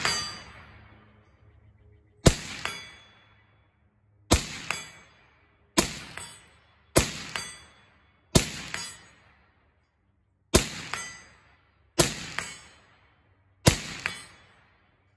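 About nine rifle shots, irregularly spaced one to two seconds apart, from a 7.5-inch 5.56 AR-15 piston SBR fitted with a SilencerCo Saker 556K suppressor. Each shot is followed a moment later by the clang and ring of a steel target plate hit at 100 yards.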